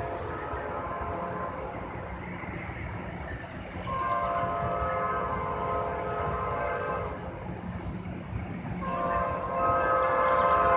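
Freight locomotive air horn sounding a chord of several notes in long blasts, one lasting about three seconds and a second starting near the end, louder, over the low steady rumble of the approaching train.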